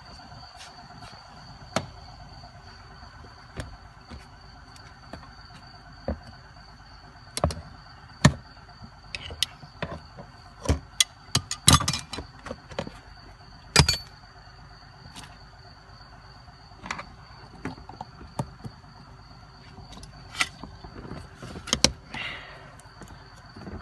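Irregular clicks, taps and knocks of hand tools and parts being handled during car repair work, over a steady faint background with a thin high whine.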